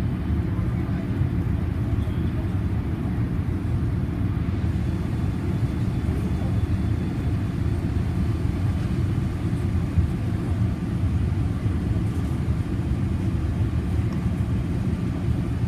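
Steady low rumble of engine and airflow noise inside the cabin of a Boeing 787 Dreamliner airliner, even and unbroken throughout.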